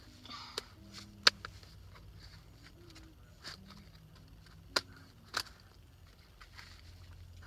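Small plastic toys being handled and set down, giving a few sharp clicks and knocks, the loudest about a second in and two more near the five-second mark.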